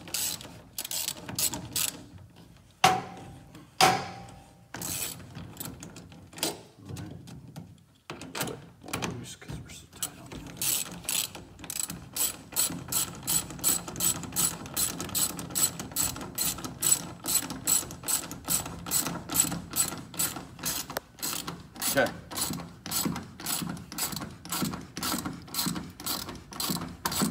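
Hand socket ratchet clicking as bolts are pulled tight by hand, in runs of quick even clicks of about three a second. There are two louder sharp knocks about three and four seconds in.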